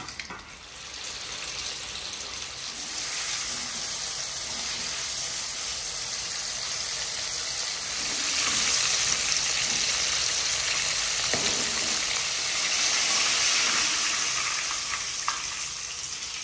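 Flour-coated chicken pieces sizzling as they deep-fry in hot oil in a kadai. The sizzle grows louder over the first half and then stays steady.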